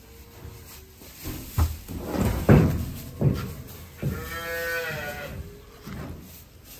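One long moo from cattle about four seconds in, rising and then falling in pitch. It follows a few shorter, louder sounds earlier on.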